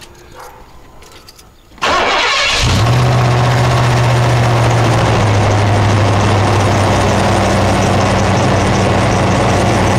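Ford 5.0 V8 in a 1990 Bronco cranking briefly about two seconds in, then catching and settling into a steady idle. It is a cold start after two days of sitting, with a rod knock from worn bottom-end bearings.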